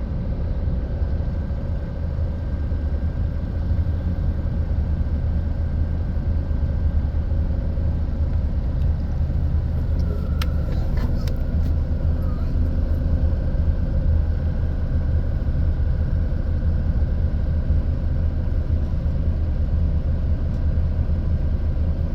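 Steady low engine rumble with a faint constant hum over it, and a few light clicks about ten seconds in.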